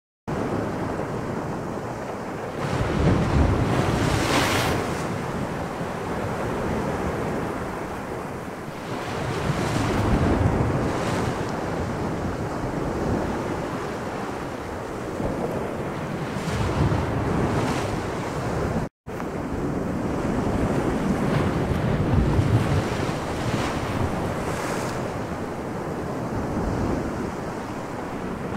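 Added sound-effect track of sea waves and wind: a steady rushing that swells and eases every few seconds, cutting out for an instant about two-thirds of the way through.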